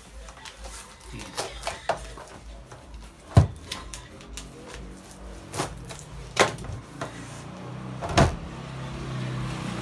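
Several sharp knocks and clacks of hard objects being handled and set down, the loudest about three and a half seconds in, with faint voices in the background later on.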